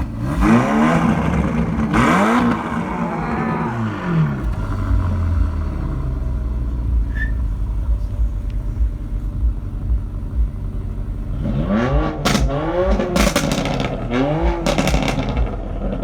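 Car engine revved hard in quick blips, its pitch jumping up and falling back several times in the first few seconds. It then settles to a low idle rumble, and a second run of sharp revs comes from about twelve to fifteen seconds in.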